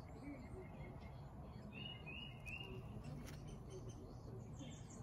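Small birds chirping faintly, in short quick phrases near the start and again about two seconds in, over a steady low background rumble, with a couple of faint clicks around the middle.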